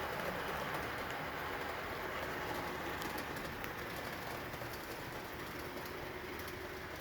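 A train running with a steady rushing, rumbling noise that slowly gets quieter, with a few light clicks.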